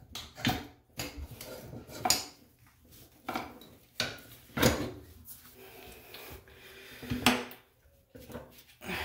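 Clatter and clunks of hand tools and pipe fittings being handled and set down on a tile floor while the old toilet supply line is capped. About four sharp knocks come a couple of seconds apart, the loudest about halfway through, with softer rubbing and rattling between them.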